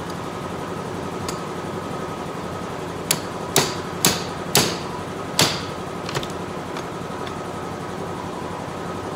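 A hammer striking steel floor-chain parts: five sharp, ringing blows about half a second apart starting a few seconds in, then a lighter tap. A steady mechanical hum runs underneath.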